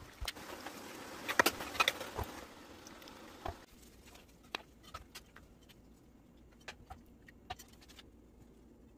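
A stir-fry sizzling softly in a pan as a wooden spatula stirs it, with a few clicks and knocks. After about three and a half seconds the sizzle stops and only scattered light clicks remain.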